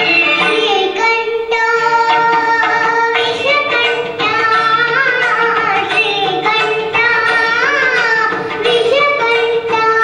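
A young girl singing a melody into a microphone, her voice bending through many quick turns in pitch over a steady held accompaniment note.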